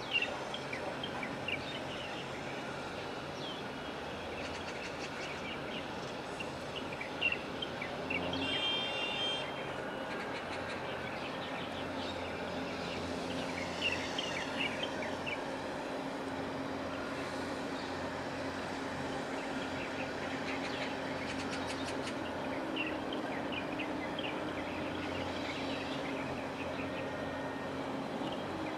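Outdoor harbour ambience: a steady low rumble with small birds chirping now and then, and a steady engine hum that sets in about twelve seconds in and holds on to the end.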